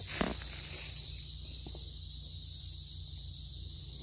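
A steady, high-pitched chorus of insects in the woods. There is a crunch of a footstep on dry leaf litter just after the start, then fainter steps.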